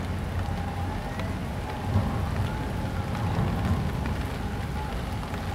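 Steady rain falling on wet pavement and water, with scattered drop ticks over a low rumble.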